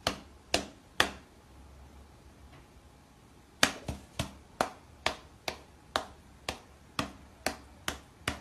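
A run of sharp clicks: three about half a second apart, a pause of over two seconds, then a steady run of about two clicks a second.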